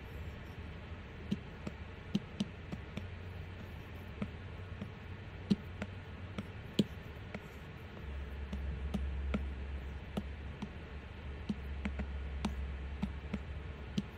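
Apple Pencil tip tapping on an iPad's glass screen: sharp, irregular taps, a couple every second or so. A low hum sits beneath them and grows louder a little past halfway.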